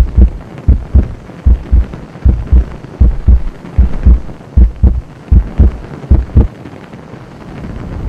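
Heartbeat sound effect: deep double thumps, lub-dub, a little more than one pair a second, stopping about six and a half seconds in as a rising rushing swell builds near the end.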